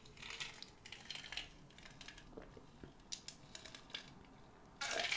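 A person drinking water from a glass tankard: faint, scattered swallowing gulps and small ticks, with a louder rush of breath near the end.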